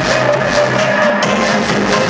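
Electronic dance music with a steady beat, played loud through a custom car audio system of large subwoofers and speakers built into the back of a van.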